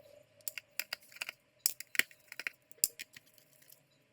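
A dozen or so irregular sharp clicks and light knocks of small hard objects being handled, like a laptop's plastic case and tools being moved on a bench, over a faint steady hum.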